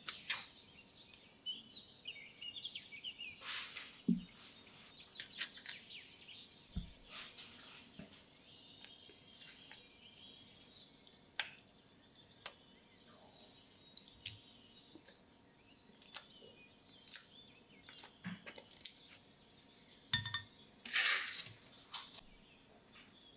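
Scattered light clicks, rustles and short rasping scrapes of a spatula and cream cheese against a ceramic dish, the loudest about 3.5 s, 7 s and 21 s in. Faint bird chirps can be heard in the background.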